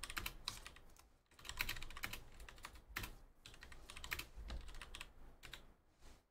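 Typing on a computer keyboard: quick runs of key clicks, with a short pause about a second in, stopping shortly before the end.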